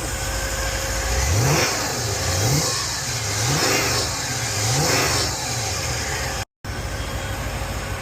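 LS V8 engine of a Chevrolet Monte Carlo SS idling, then revved in four quick blips, each a rise and fall in pitch about a second apart, before settling back to idle.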